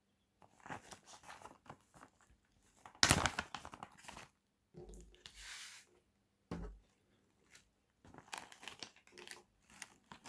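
Packaging being opened and handled by hand: crinkling, rustling and tearing in irregular bursts, loudest about three seconds in.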